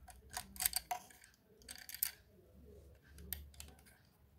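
Faint, light metallic clicks in a few short clusters as a bobbin case is unlatched and pulled out of a sewing machine's shuttle hook.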